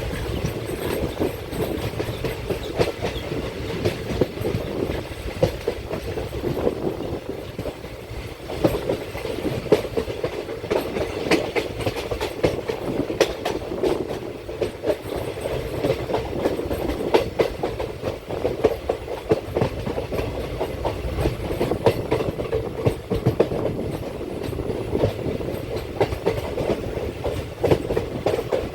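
Passenger coach of the 16325 Nilambur–Kottayam Express running along the track: a steady rumble with the wheels clacking over rail joints again and again.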